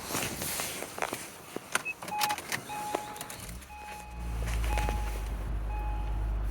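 A few sharp clicks, then the 2006 Acura RL's warning chime beeping about once a second. About three and a half seconds in, the car's 3.5-litre V6 engine starts and settles into a steady low idle under the beeping.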